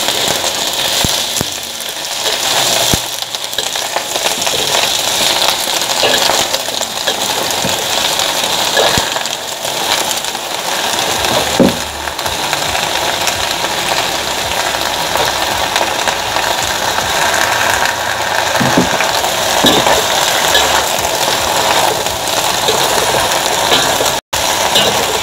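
Leafy greens sizzling loudly in a hot wok as they are stir-fried, a steady hiss with occasional clicks and scrapes of a metal spatula against the wok.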